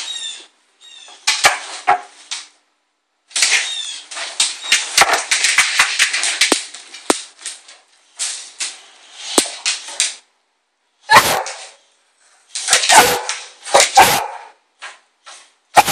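Boxer-type dog barking in alarm at a Halloween witch figure: sharp barks in bunches, the loudest in the second half. Earlier there is a long stretch of crackling, rustling noise.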